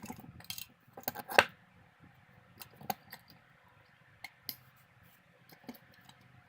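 Parts of a handheld camera stabilizer being handled and fitted together: clicks and knocks, the loudest about a second and a half in, then a few light taps.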